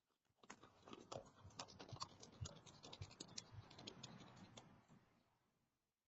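Rapid, irregular scratching and clicking, a flurry of small sharp ticks lasting about five seconds, then stopping abruptly.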